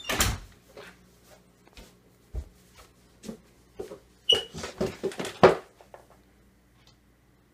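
A scuffle close to the microphone: a run of knocks, bumps and rustling handling noise. There is one loud bump at the start and a quick cluster of thumps about four to five and a half seconds in, then quiet.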